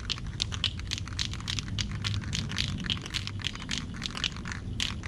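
Rapid, irregular clicking rattle of the mixing ball inside a Rust-Oleum Rust Reformer spray can as it is shaken, several clicks a second, over a low steady wind rumble.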